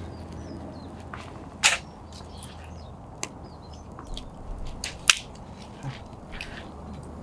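Wood campfire crackling with scattered sharp pops, the loudest about two, three and five seconds in; the fire is still burning weakly.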